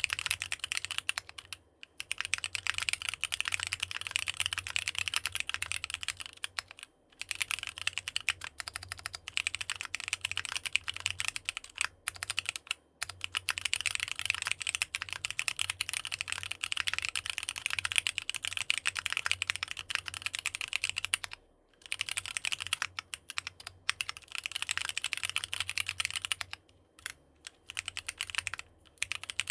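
Fast typing on a NEO65 65% mechanical keyboard fitted with AKKO Sponge tactile switches: a dense run of key clacks, broken by short pauses every few seconds.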